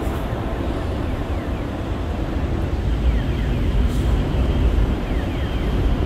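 Steady rumble of city traffic, with buses and cars running on the roads below.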